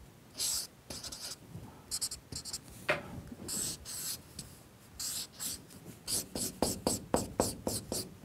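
Felt-tip marker drawing on flip-chart paper: scratchy pen strokes of varying length, turning into a quick run of short strokes in the last few seconds.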